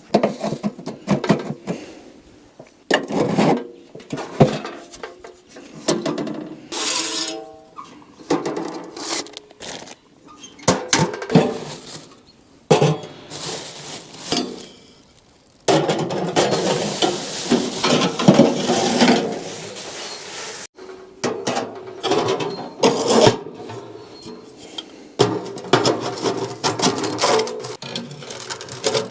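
Pots, dishes and utensils being handled: irregular clatter, knocks and scraping, with a brief ringing clang and a longer scraping stretch midway through.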